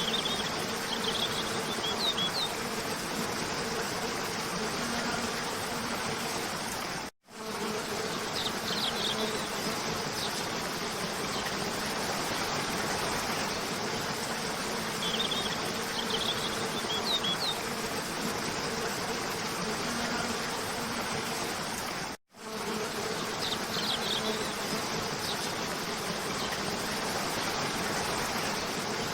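Steady rush of a cascading waterfall with a low buzzing hum under it and a few short, high bird chirps every several seconds. The sound cuts out for a moment twice, about seven and twenty-two seconds in, where a looped recording restarts.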